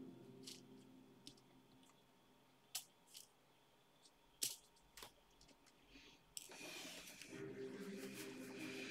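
Faint, scattered clicks and taps of a diamond-painting drill pen picking up resin drills from a plastic tray and pressing them onto the canvas. A soft rustling hiss starts about six seconds in.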